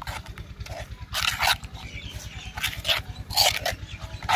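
A metal spoon stirring and scraping a thick yogurt-and-spice marinade around a clay bowl in short irregular strokes, over a low steady hum.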